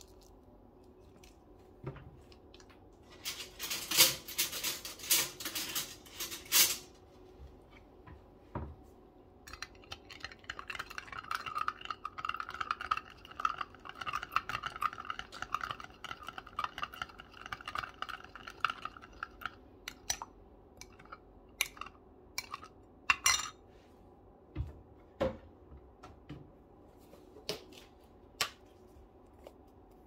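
A metal spoon stirring in a glass cup, clinking against its sides. A few loud clinks come first, then about ten seconds of rapid, continuous clinking with a ringing note, then scattered single taps near the end.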